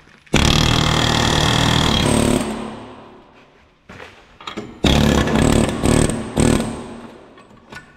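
Pneumatic air hammer with a punch bit hammering on a steel truck-frame bolt to drive it out: one long burst of about two seconds, then a few shorter bursts about five to seven seconds in.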